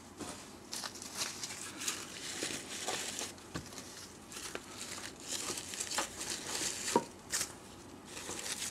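Artificial flowers rustling and crinkling as they are handled and pushed into a vase, with a few light clicks among the rustling.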